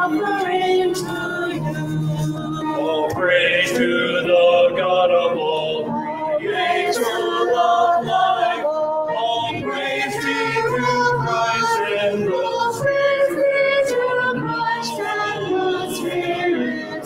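Group singing of a hymn, led by a small vocal group with the congregation, in sung notes held about a second each with no pause.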